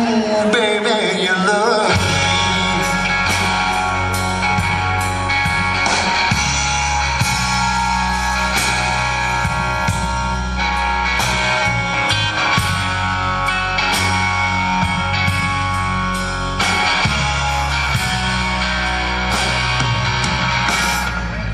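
Live blues-rock band playing: electric guitar over bass guitar and drums. The low end comes in about two seconds in.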